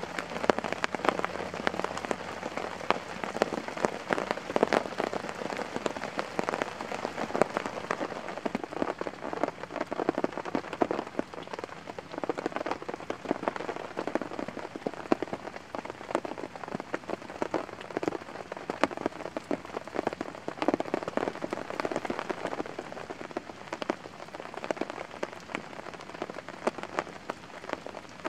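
Steady rain pattering, a dense mass of small drops, with the crackle of a small wood campfire heating a kettle mixed in.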